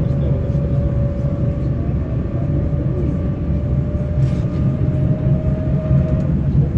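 Tatra KT8D5 articulated tram running, heard from inside: a steady low rumble of wheels and running gear on the rails. Over it is a thin whine that rises slightly in pitch and stops about six seconds in.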